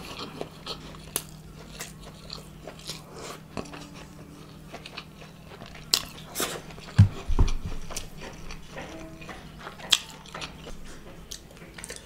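Close-miked eating sounds of biryani eaten by hand: chewing and biting with wet mouth clicks and smacks. A few loud low thumps come about seven seconds in.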